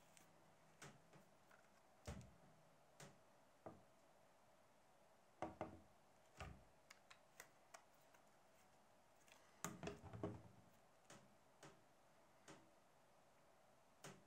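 Near silence broken by scattered light clicks and taps, with two short clusters of louder knocks, one about a third of the way through and one about two thirds of the way through.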